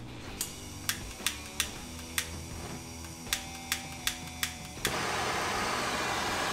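Spark lighter clicking about ten times as it tries to light a handheld gas torch, then the torch catches about five seconds in and burns with a steady hiss.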